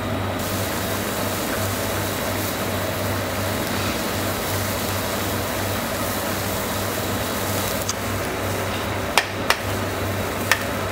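Broth boiling hard in a wide paella pan, a steady bubbling noise over a low hum. Near the end a few sharp clicks of a metal spoon touching the pan.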